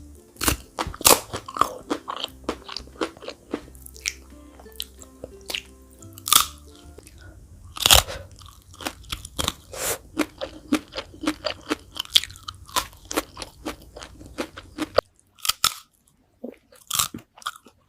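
Close-up crunching bites and chewing of fried chicken feet, many crisp crunches with one loud bite about eight seconds in. Soft background music plays underneath and stops about fifteen seconds in.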